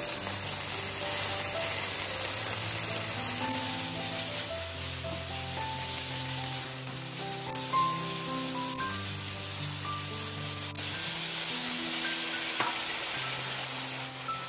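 Instrumental music, a melody of held notes moving step by step, over a continuous hiss.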